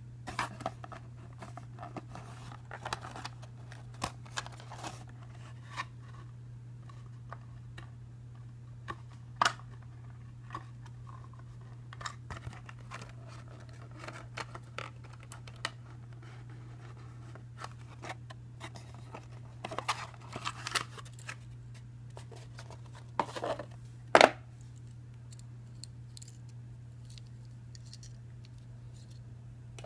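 Hands handling a cardboard box, plastic packaging and a small plastic quadcopter drone: scattered clicks, taps and short rustles, the loudest a sharp knock about three-quarters of the way through. A steady low hum sits underneath.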